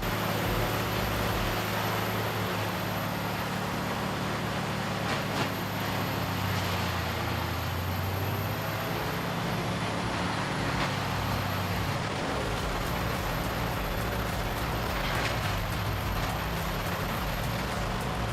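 Morbark 1000 wood grinder running under load: a steady heavy diesel engine hum over the dense noise of wood being ground into chips, with a few brief clatters. The engine hum weakens about twelve seconds in.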